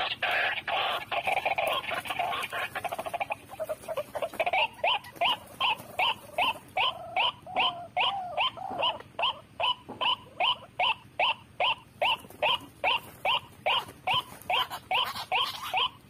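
White-breasted waterhen (ruak-ruak) calling: a churring run for the first three seconds or so, then a steady series of loud repeated croaking calls, about three a second.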